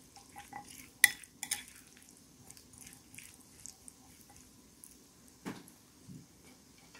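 Metal spoon stirring cooked white beans in a ceramic bowl. The spoon clinks sharply against the bowl about a second in, then again more lightly, with small scraping ticks as it turns the beans. There is a duller knock near the end.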